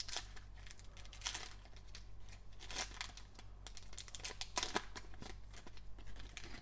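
A foil trading-card pack crinkling and tearing as it is opened, an uneven run of crackles and rustles.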